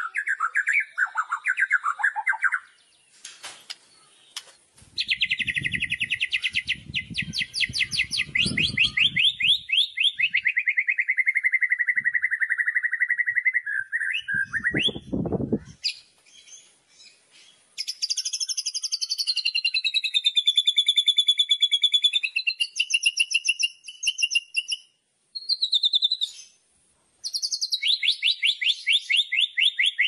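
White-rumped shama (murai batu) singing loud 'kretekan' song: fast rattling trills, falling and wavering whistled notes in phrases broken by short pauses. A low rumbling noise lies under the song in the first half.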